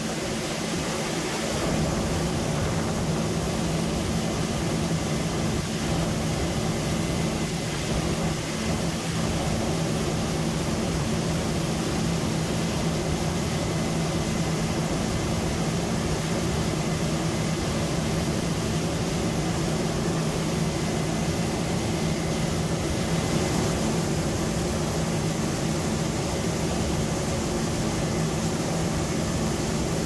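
Steady machinery hum with a few constant low tones over an even rushing noise, unchanging throughout.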